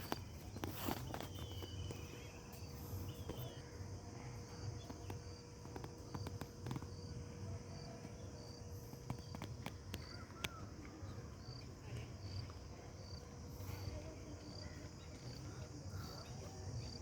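Insect, likely a cricket, chirping: short high chirps repeating at an even pace over faint outdoor background noise.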